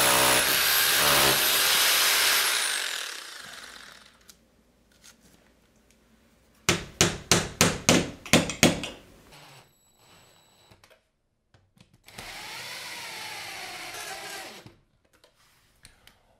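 Hammer drill with a masonry bit drilling into a plastered wall, its motor whine falling away as it stops about three seconds in. A few seconds later come about ten quick hammer knocks driving wall plugs into the holes, and near the end a cordless drill driver runs for a couple of seconds, driving the bracket screws.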